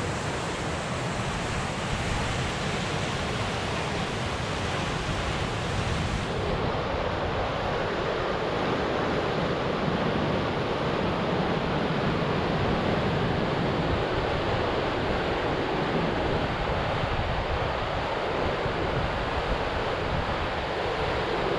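Whitewater rapids of the Animas River rushing steadily, a dense continuous water noise that turns slightly duller about six seconds in.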